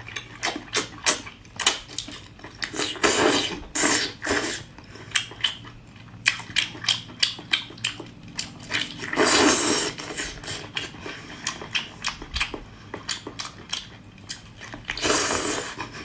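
Close-up eating sounds of a person chewing octopus: wet mouth clicks and smacks, about two to three a second, broken by a few longer slurps.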